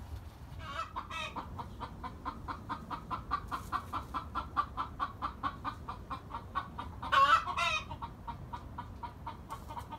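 Chickens clucking in a fast, even run of short clucks, about four or five a second. Louder, longer calls break in about a second in and twice just after seven seconds in.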